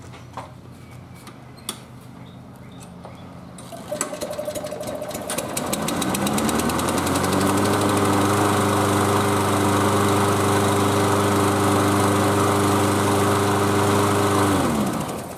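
Toro Recycler lawn mower's Briggs & Stratton engine starting about four seconds in, revving up to a steady speed and running evenly, then winding down and stopping near the end. It starts and runs right after its priming system was repaired and shown to deliver fuel.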